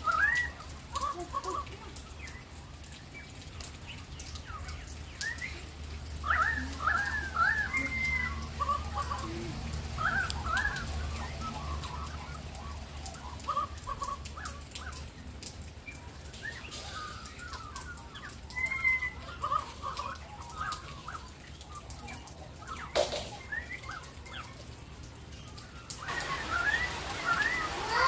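Australian magpies carolling: bursts of warbling, fluting phrases with quieter gaps between, the singing picking up again strongly near the end.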